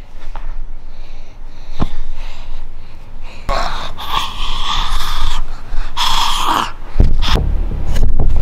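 A person's loud breathy gasping and snorting, in noisy rasping bursts over several seconds, followed near the end by heavy low rumbling knocks.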